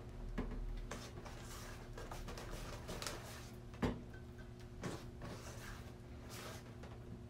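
Spatula stirring thick cake batter in a stainless steel mixing bowl: soft scraping and scattered light knocks against the bowl, with one sharper knock about four seconds in. A faint steady hum runs underneath.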